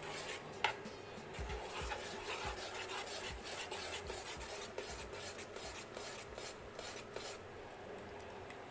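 A spoon stirring wheat grains and gypsum in a pot of boiling water, making a quick, irregular scraping and rasping. The stirring stops near the end.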